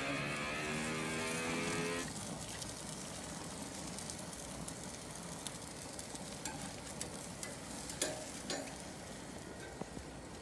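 Slider patties sizzling on a very hot gas grill's grates, with small crackles and a few sharp clicks of tongs on the grate, the loudest about eight seconds in. For the first two seconds a steady pitched tone, like music, sits over it and cuts off suddenly.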